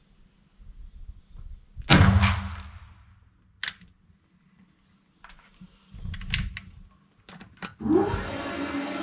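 A muzzleloading rifle fires once about two seconds in: a sharp bang with a booming tail that dies away over about a second. Several clicks and knocks follow as the rifle's lock is handled, and near the end a steady mechanical hum starts up.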